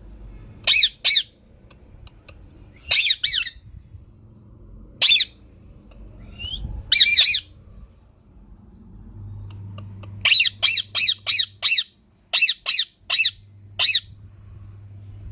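Green parrot giving short, high-pitched squawks in scattered pairs and single calls, then a quick run of about five calls followed by a few more near the end.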